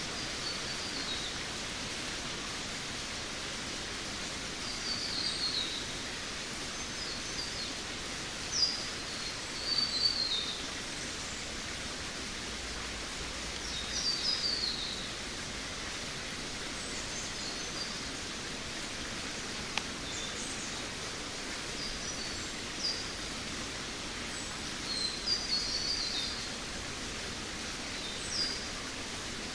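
Jungle ambience: a steady even hiss with birds giving short, high, downward-slurred chirping phrases every few seconds.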